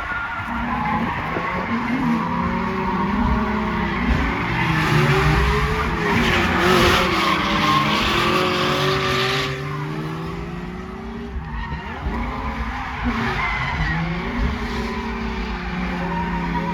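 A drifting car: the engine's revs rise and fall as the throttle is worked, under the hiss of squealing, sliding tires. The tire noise is heaviest from about five to nine and a half seconds in, then eases.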